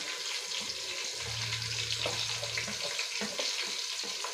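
Sliced onions sizzling in hot oil and ghee in an aluminium pot, a steady hiss with small crackles as they sauté.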